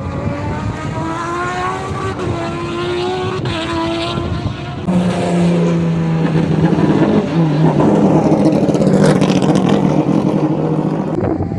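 Turismo Carretera race car engines at full throttle. One engine climbs in pitch through two upshifts. About five seconds in a louder engine takes over, holding a steady high note that drops once, and it falls away shortly before the end.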